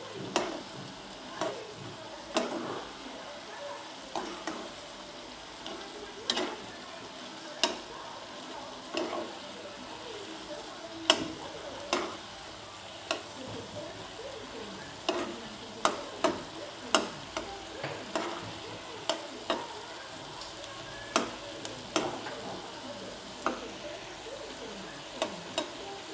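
A spoon stirring noodles in broth in a small non-stick saucepan, knocking and scraping against the pan at irregular moments, about one or two knocks a second. A steady hiss runs underneath.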